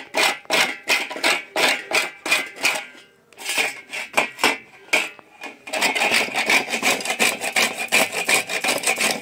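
Dry coconut (gari gola) being grated on a hand grater: rhythmic rasping strokes, about three a second, a short pause about three seconds in, then faster strokes from about six seconds in.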